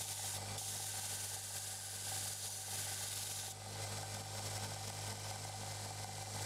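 Belt grinder motor running with a steady hum while a steel knife blade, cut from a reciprocating saw blade, is ground against the belt: a hissing grind that stops about three and a half seconds in, leaving the grinder running on its own.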